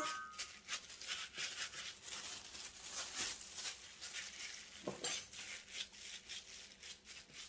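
Plastic-gloved hands pressing raw ground-beef meatloaf mixture down into a small loaf pan: soft, irregular squishing and rubbing of meat and glove.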